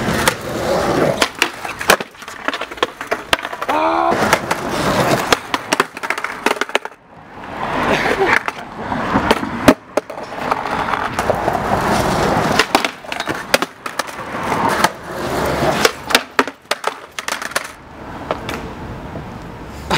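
Skateboard wheels rolling on a concrete sidewalk, with repeated sharp clacks and slaps of the wooden deck hitting the pavement as tricks are tried and the board shoots away. Near the end a skater falls onto the concrete.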